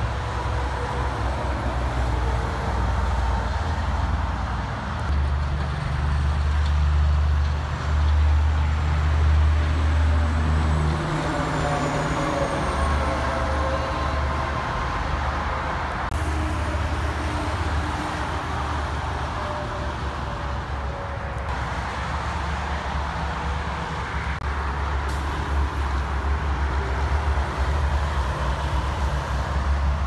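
Highway traffic with heavy diesel trucks and cars passing: a steady deep rumble of engines and tyres, strongest between about five and eleven seconds in.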